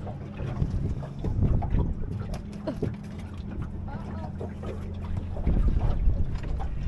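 Wind buffeting the microphone aboard a small boat, over a steady low hum, with scattered light knocks; the wind gets heavier about five and a half seconds in.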